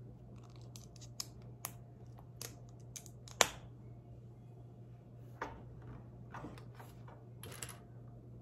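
Plastic Lego bricks clicking and clattering as pieces are handled and pressed together: scattered sharp clicks, the loudest about three and a half seconds in.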